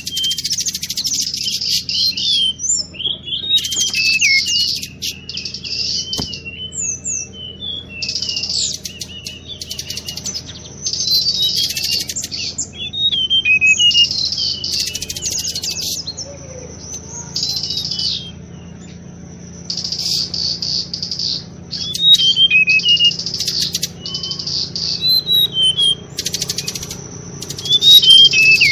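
Recorded song of the tledekan bakau played as a bird lure: repeated phrases of high, rapid chirps and quick whistled glides, a phrase every second or two, over a faint low hum.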